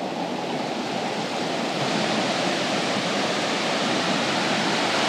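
Steady rushing of a rain-swollen stream and waterfall in flood, growing a little louder about two seconds in.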